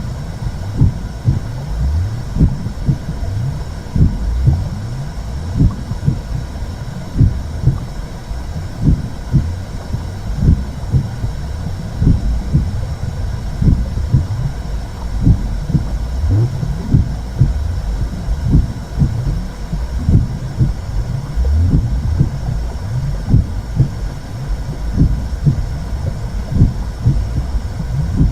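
Womb sound for soothing a baby: a muffled heartbeat pulsing steadily over a continuous low whooshing rumble.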